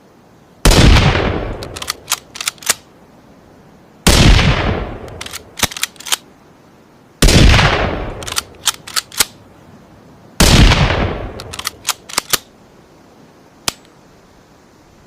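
Four rifle shots from a Ruger American bolt-action rifle, a hybrid gunshot sound effect, spaced about three seconds apart. Each shot has a ringing tail of about a second and is followed by a quick run of sharp clicks. A single click comes near the end.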